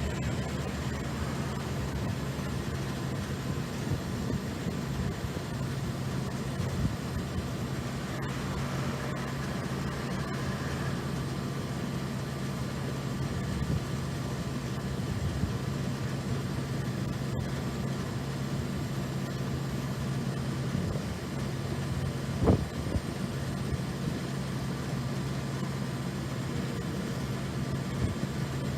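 Steady low hum of road traffic and machinery, with a single short knock about three quarters of the way through.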